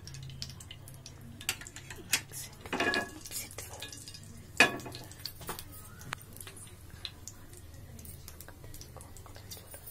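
Cumin and mustard seeds sizzling and crackling in hot oil in a frying pan, with scattered small pops. A couple of louder clinks of the pan come about three and four and a half seconds in.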